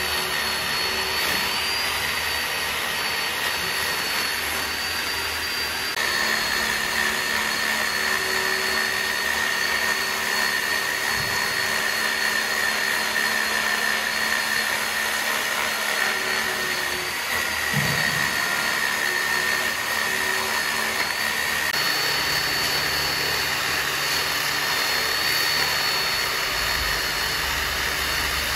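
Sawmill machinery running steadily: a continuous mechanical hum with a high whine over it. The sound changes abruptly twice, about six seconds in and again around twenty-two seconds.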